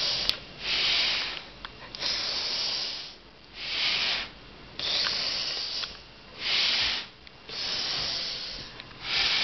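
A man breathing hard through his nose to inflate a latex glove stretched over his head: a run of about seven loud rushing breaths, each lasting about a second, one every second and a half or so.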